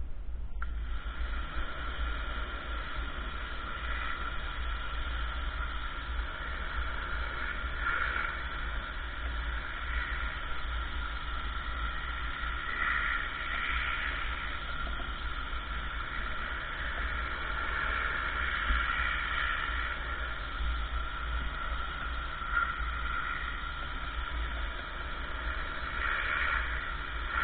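Ryobi RY14122 electric pressure washer (1,700 psi, 1.2 gallons per minute) running, its water jet spraying a car windshield to clean off bugs. The spray and pump make a steady hiss with a constant tone in it, starting about half a second in.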